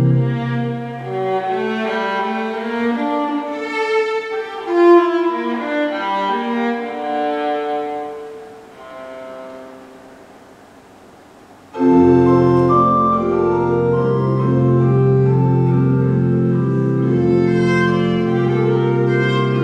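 Viola and pipe organ playing together. The organ drops out after a second or two, leaving the viola alone on a moving melodic line that grows soft. About two-thirds of the way through, the organ comes back in suddenly with loud, full sustained chords under the viola.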